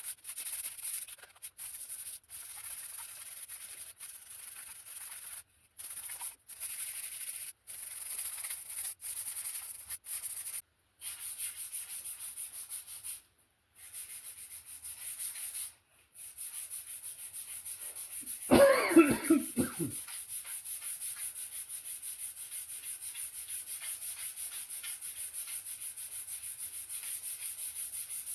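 Sandpaper rubbing by hand on a round wooden rolling pin blank, in quick, even back-and-forth strokes with a few short breaks. It is the smoothing stage of the sanding, working through finer grits up to 120. About two-thirds of the way through, a brief voice-like sound that falls in pitch is heard over it.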